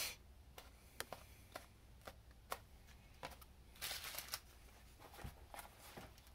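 Quiet handling noises of craft-foam pieces and a paper pattern: scattered light taps and clicks, with a short rustle about four seconds in as a piece is set down on the plastic sheet covering the bench.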